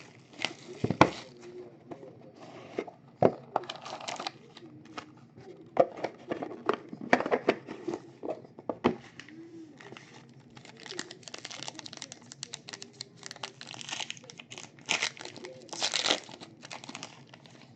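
Plastic wrapping being torn and crinkled off sealed trading-card boxes, mixed with irregular clicks and knocks of cardboard being handled. Longer crinkling stretches come in the second half.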